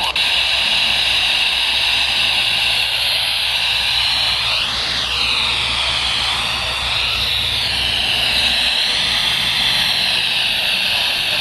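Weather radio receiver hissing with static on a weak, fading broadcast signal. A whistle rises and falls about five seconds in, and a low hum underneath cuts out near the end.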